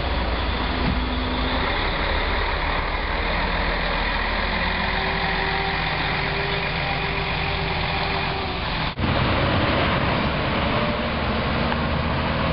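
City bus's diesel engine running as the bus moves slowly past at close range, with street traffic around it. The sound drops out for an instant about nine seconds in, then engine and traffic noise carry on.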